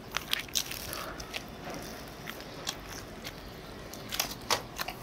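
Close-up mouth sounds of people biting and chewing pizza: scattered small crunches and clicks over a quiet background, with a brief cluster of crunches about four seconds in.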